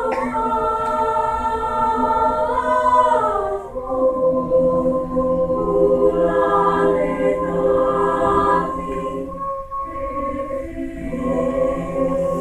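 Choir singing long held chords in several voice parts, moving to a new chord about four seconds in, with a short break in the sound near ten seconds before the next phrase.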